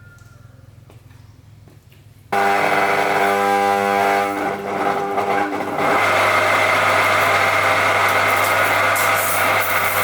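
Old truck engine starting: a sudden loud start on the starter about two seconds in, then the engine settles into a steady idle after a few more seconds.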